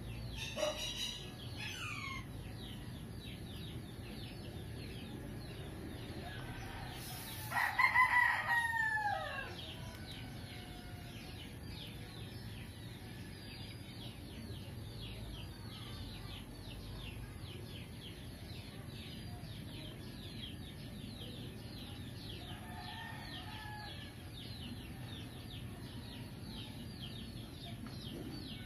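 A rooster crowing once, loud, about eight seconds in, the call falling in pitch at its end; a fainter falling call comes about a second in. Behind it runs a steady, fast, high chirping.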